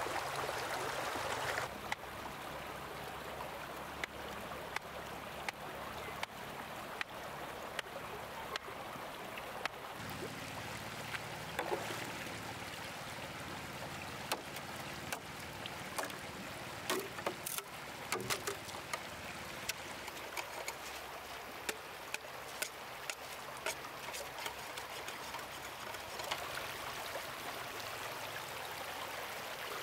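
Stream water running steadily, with many irregular sharp knocks and clicks through it, most frequent in the middle.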